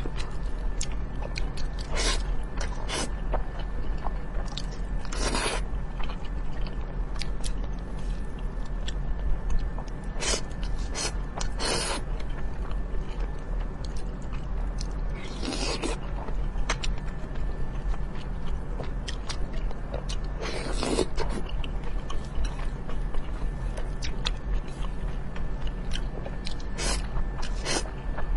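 Close-miked eating of spicy fried noodles and glazed chicken wings: steady chewing and wet mouth clicks, with about seven louder half-second slurps or bites spread through.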